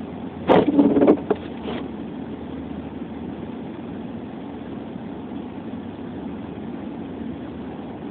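Steady car cabin noise: the car's engine running with a constant hum from inside the car. A brief, louder sound lasting just over a second interrupts it about half a second in.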